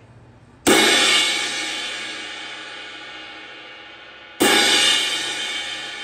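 Centent Emperor B20 bronze crash cymbal struck twice with a drumstick, about a second in and again about four seconds later, each crash ringing out and slowly fading.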